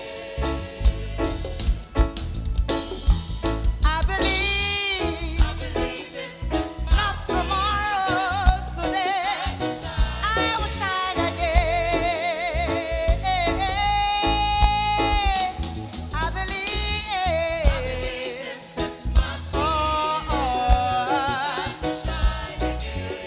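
Music with a sung melody over a band with a steady drum beat; the singer holds long notes with vibrato.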